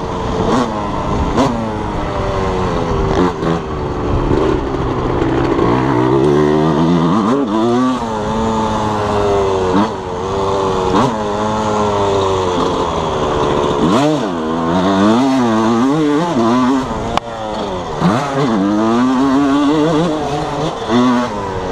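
1987 Suzuki RM125's single-cylinder two-stroke engine being ridden hard on a motocross track, revving up and dropping back again and again through the gears and corners, with a few sharp knocks from the bike over the ground.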